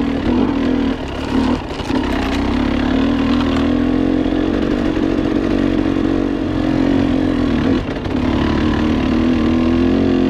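KTM 300 XC two-stroke dirt bike engine running under load on a trail, its pitch wavering with the throttle. It eases off briefly about a second in and again near eight seconds, then pulls back on.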